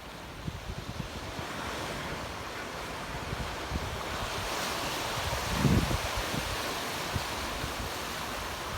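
Ocean surf on a beach: a wave's hiss builds and peaks about halfway through, with wind buffeting the microphone in low gusts around then.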